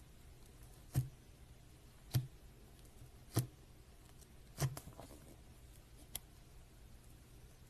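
Slime being handled, giving five short clicks or pops a little over a second apart, the last one fainter, over a low steady hum.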